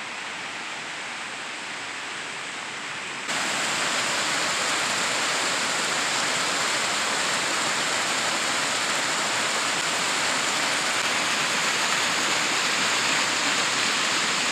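Creek water cascading over rocks: a steady rush of white water that suddenly gets much louder about three seconds in.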